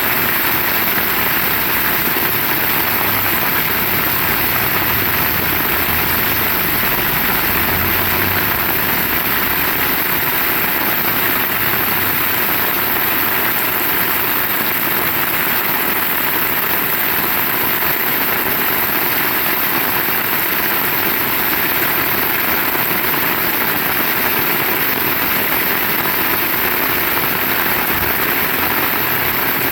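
Heavy rain falling steadily: an even, loud hiss with no breaks.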